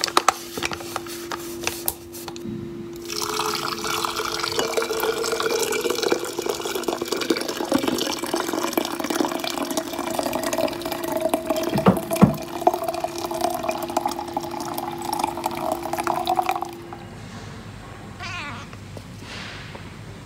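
A paper coffee bag crackling, then water poured from a metal kettle into a glass French press of ground coffee, the pour's pitch rising slowly as the press fills. The pour stops suddenly, and near the end a cat meows twice.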